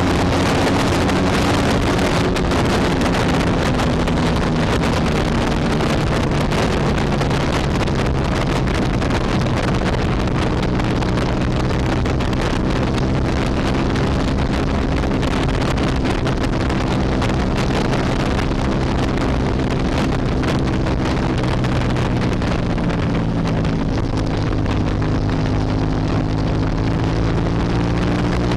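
Hyosung GT250 Comet's 250 cc V-twin engine running at a steady cruising speed, with heavy wind rush over the microphone. The engine note dips briefly and climbs again toward the end.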